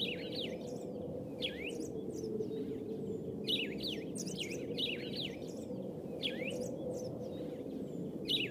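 Small birds chirping: short, quick falling chirps in scattered clusters, several a second within each cluster, over a steady low background of outdoor noise.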